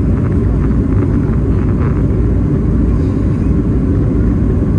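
Airliner cabin noise in flight: a steady, loud, low rumble of engines and rushing air.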